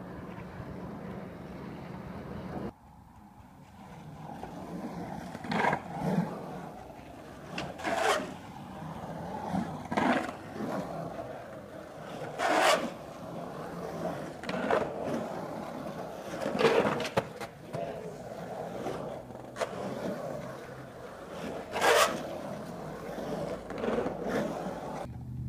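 Skateboard rolling on the concrete walls of an empty backyard pool. A series of sharp clacks and scrapes, about every two to four seconds, come as the board hits and grinds the pool's edge. A steady low hum fills the first few seconds, then cuts off abruptly.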